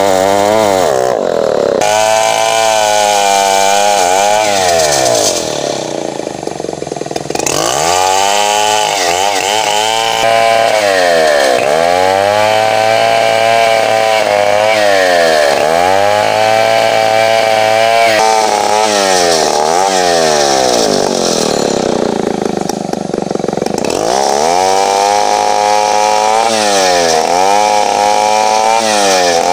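Large two-stroke chainsaw ripping lengthwise through bengkirai hardwood, its engine pitch repeatedly sagging under load and climbing again as the cut goes on. Twice, about a fifth of the way in and again about three-quarters through, the engine drops low and quieter for a moment before revving back up.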